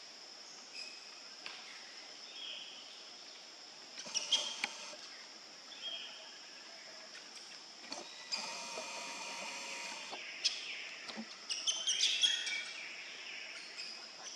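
Outdoor forest ambience: a steady high insect drone with scattered bird chirps and sharp clicks and rustles, busiest about four seconds in and again near twelve seconds. For about two seconds in the middle, a steadier buzzing noise rises over it.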